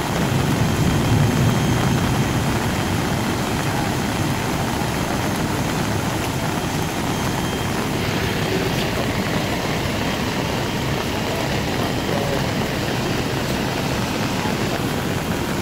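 Steady, loud rushing noise of heavy rain and flooding water.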